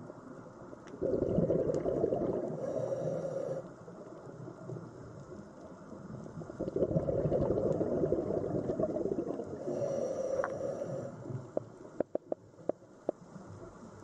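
A scuba diver breathing through a regulator: two long bubbling bursts of exhaled air a few seconds apart. A few sharp clicks follow near the end.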